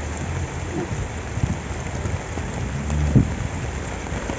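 Rain falling steadily, with gusts of wind rumbling on the microphone at the start and again around three seconds in, and a few sharp close taps.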